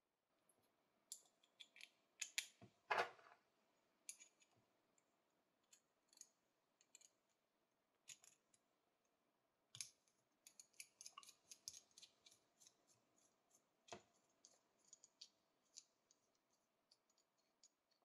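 Small brass parts of antique binoculars being handled and unscrewed by hand: a run of light metallic clicks and scrapes, densest about three seconds in.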